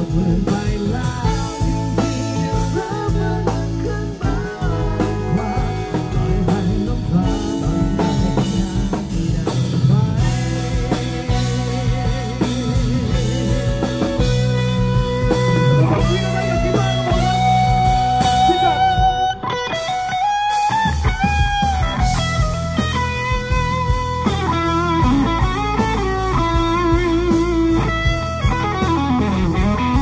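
Live rock band music, led by an electric guitar playing a lead of long, bending notes over the band.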